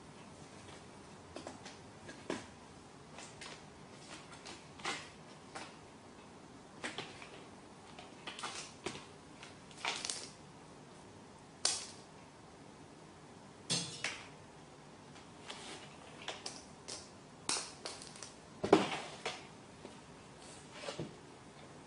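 A cat moving about, making irregular light taps, scuffs and rustles every second or so, with one louder thump about 19 seconds in.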